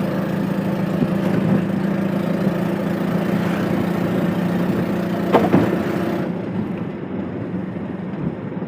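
CNG auto-rickshaw engine running with a steady drone, with a couple of short knocks about five seconds in; the drone eases off about six seconds in.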